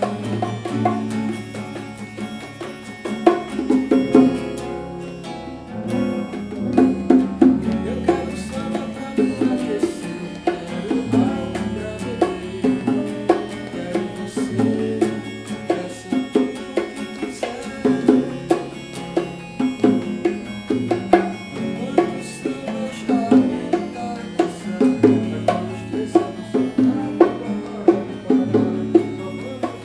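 Instrumental passage from a small acoustic band: two acoustic guitars strummed and picked, with bongos tapped by hand and sustained low bass notes underneath.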